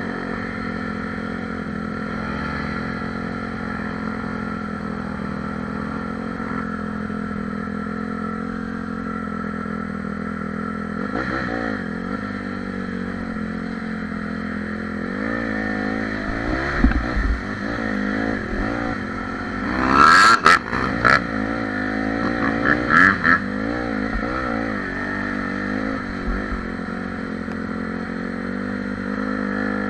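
Dirt bike engines idling steadily, then revving and pulling away, the engine note rising and falling repeatedly as the bike rides through a flooded muddy trail. A few loud sharp bursts come about two-thirds of the way in.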